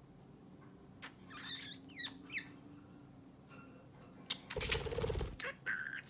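Budgerigar chattering: quick squeaky chirps and short falling whistles, with another short chirp near the end. About four seconds in, a sharp tap and a brief rustle are the loudest sounds.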